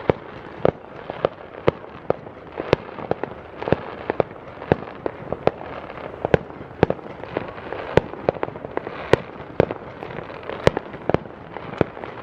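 Fireworks going off all around: a string of sharp bangs and pops at uneven intervals, about two a second, over a steady wash of noise.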